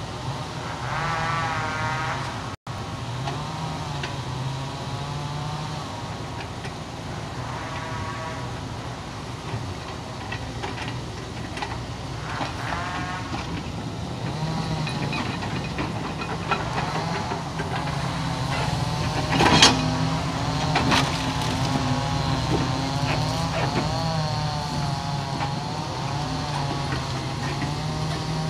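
Kobelco hydraulic excavator with a log grapple working: its diesel engine runs steadily under load while the hydraulics whine, rising and falling in pitch with each swing and grab of the boom. A loud knock comes about two-thirds of the way through, with a few lighter knocks around it.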